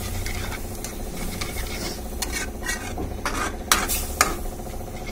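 Slotted metal spatula scraping and knocking against a metal kadhai as hot milk and ghee-fried vermicelli are stirred, over a sizzle from the pan. A few sharper clacks come in the second half.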